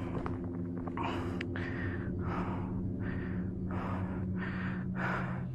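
A man panting hard, out of breath from climbing a steep mountain trail, with quick, even breaths about one every three-quarters of a second. A steady low hum runs underneath.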